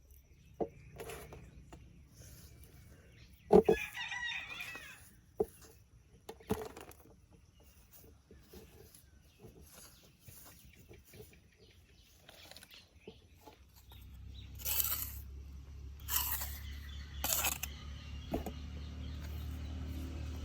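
A chicken squawks once, a few seconds in, among scattered sharp knocks. About two-thirds of the way through, a low steady hum starts, with a few short hissing noises over it.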